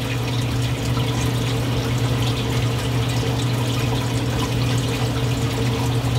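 Steady rush of water running through a reef aquarium's sump, with a constant hum from the pumps underneath.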